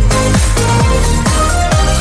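Background electronic dance music with a steady beat: kick drums that drop in pitch roughly twice a second under short synth notes.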